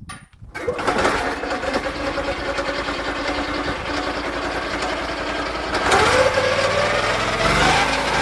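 Lucas portable sawmill's petrol engine starting about half a second in and running steadily, revving up around six seconds in and changing pitch again near the end.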